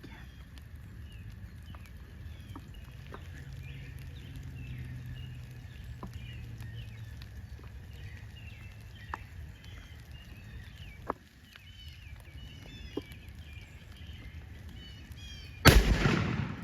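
Small birds chirping, then near the end a single loud shotgun blast with a short echoing tail: a turkey hunter's shot.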